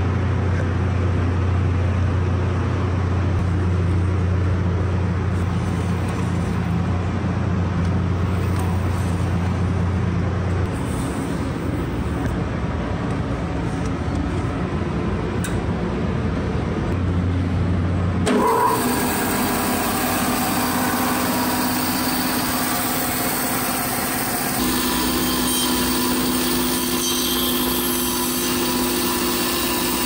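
Workshop machinery running with a steady hum, most likely a bandsaw's motor. A low drone breaks off about ten seconds in, and the sound changes abruptly to a brighter, hissier running noise about eighteen seconds in.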